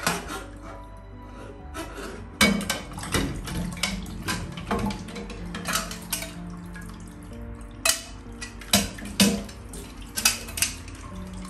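Stainless steel kitchen utensils, a potato ricer among them, clinking and knocking against each other and the sink as they are washed under running tap water, in irregular sharp clanks. Background music plays underneath.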